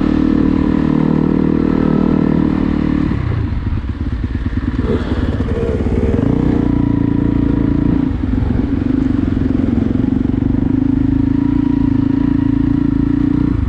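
Motocross bike engine running loud under way through sand. It holds steady revs, then the revs rise and fall for a few seconds from about three seconds in, and it settles back to steady revs.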